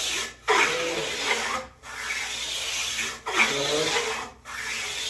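Hand plane, a combination plane, being pushed along a wooden board's edge in repeated passes. Each stroke is a rasping shave about a second long, with short breaks between strokes.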